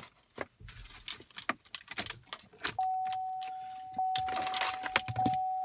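Rattling and clicking of a plug and its cable being fiddled with. About halfway through, the 2015 Chevrolet Impala's warning chime starts: a single steady tone struck again about every second, ringing on between strikes.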